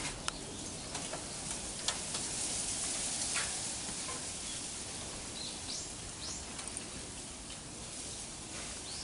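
Steady outdoor background hiss with a few soft clicks and rustles near the start, and two short high bird chirps about six seconds in.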